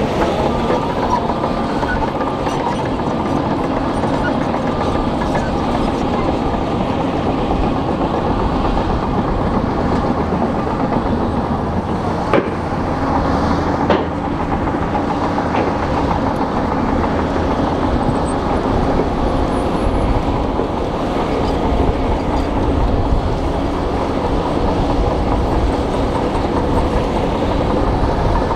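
Shantui crawler bulldozer's diesel engine running steadily under load with its steel tracks clanking as the blade pushes rock and soil.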